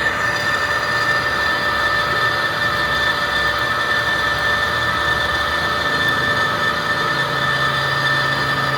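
Metal lathe running steadily, a machine hum with a few constant high-pitched whining tones; a lower steady hum joins about seven seconds in.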